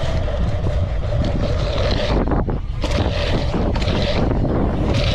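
Wind buffeting a GoPro microphone as a race BMX bike is ridden fast around a dirt track, a steady low rush with the tyres' rolling noise and swells of hiss every second or so.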